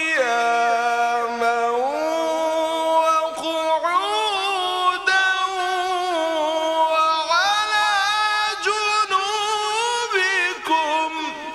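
A man reciting the Quran in the melodic tajweed style. He holds long, drawn-out vowels with wavering, ornamented notes that glide up and down in pitch. The voice ends near the end and trails off in echo.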